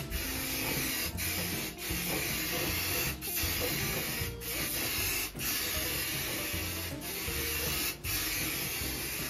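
Aerosol can of black gloss spray paint hissing in long passes, breaking off briefly several times between strokes.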